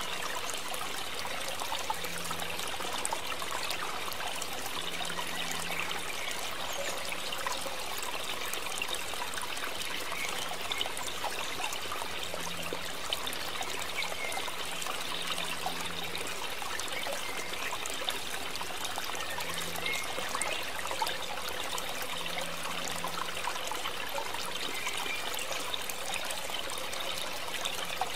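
Water trickling steadily, with many tiny splashing ticks and a faint low hum that comes and goes.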